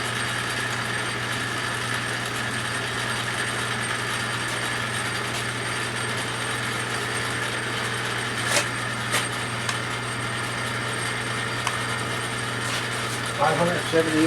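Metal lathe running steadily with its spindle turning at about 560–580 RPM, a constant mechanical hum. Two sharp clicks come about two-thirds of the way through.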